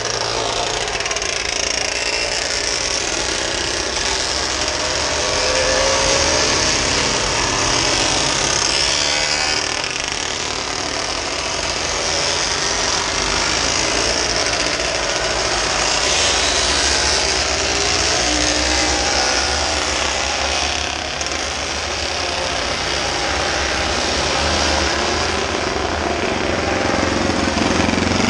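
Motorcycle engines racing on a road circuit, their pitch rising and falling with the riders' throttle and gear changes, over a steady noisy hiss.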